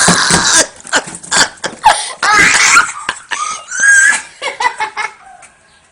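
People laughing in short bursts, dying away near the end.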